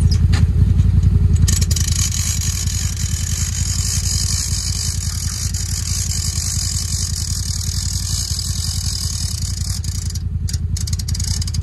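CFMoto ZForce side-by-side UTV engine running steadily at idle with an even low pulse. A steady hiss rises over it from about two seconds in and drops away near the end.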